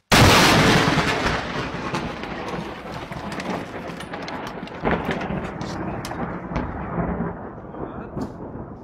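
Thunder from a close lightning strike: a sudden, very loud crack right at the start, then rumbling and crackling that slowly fades away.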